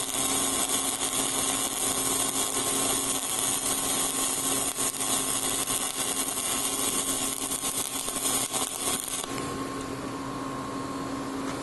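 Flux-cored wire welding arc running a fill pass on steel pipe at about 26 volts: a steady hiss with fine crackle. It stops about 9 seconds in as the pass ends, leaving a steady low hum.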